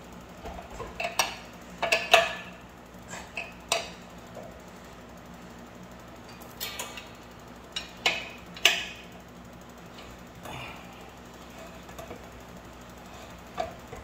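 Steel combination wrench clinking and clanking against the large hub nut on a mini bike's rear wheel as it is fitted and worked to loosen the nut: a dozen or so sharp metal clanks at uneven intervals, some in quick pairs, the loudest about two seconds in and again around eight to nine seconds.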